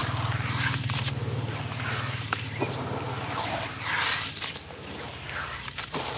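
Hands squeezing and swirling wet red dirt in a basin of muddy water: irregular squelches and sloshes, the biggest about four seconds in, over a steady low hum.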